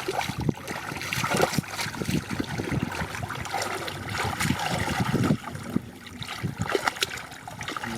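Muddy water splashing and sloshing in quick, irregular splashes, as in hands working through a shallow mud pool for fish.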